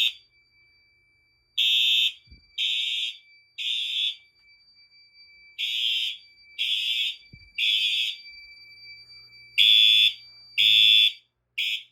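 Fire alarm horns sounding in the temporal-three evacuation pattern: three half-second blasts, then a pause of about a second and a half, repeated, over a faint steady high tone. The last blast is cut short near the end as the system is silenced.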